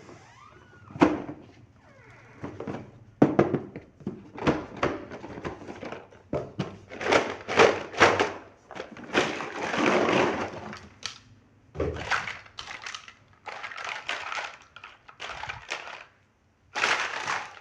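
Unboxing of a toy kitchen playset: packaging and small plastic pieces being handled, a busy irregular string of clicks, knocks and rustling.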